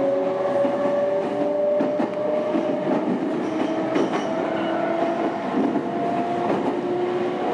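Meitetsu electric commuter train heard from inside the carriage as it picks up speed, its motor whine slowly rising in pitch over the running rumble. Scattered clicks of the wheels over rail joints come through.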